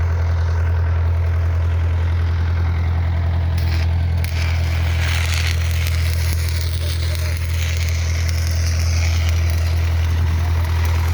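Welding machine running with a steady low hum, with the crackling hiss of an electric arc on the pipe from about three and a half seconds in until about nine seconds.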